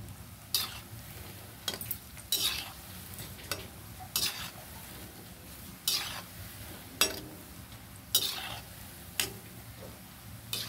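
Cabbage Manchurian balls deep-frying in hot oil in a metal kadhai, a steady sizzle, with a perforated metal skimmer scraping and knocking against the pan about once a second as the balls are turned over to fry evenly.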